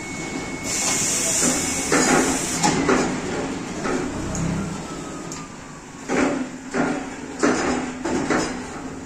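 Flat-bed pneumatic screen printing machine working: a steady whine stops about two seconds in, with a burst of air hiss early on. Clunks follow as the screen frame lifts, then several sharp knocks.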